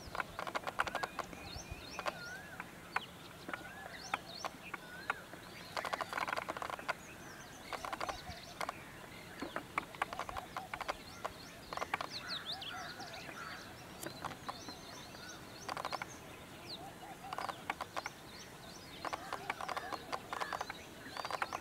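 Indian peacock shivering its fanned train: the quills rattle in bursts of rapid clicks, several seconds apart. Small birds chirp in the background.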